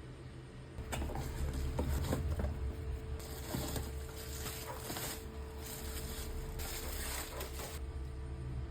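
Packaging crinkling and rustling as it is handled during an unboxing of mugs, with scattered clicks and knocks in the first seconds and a denser stretch of crackling from about three seconds in to nearly the end.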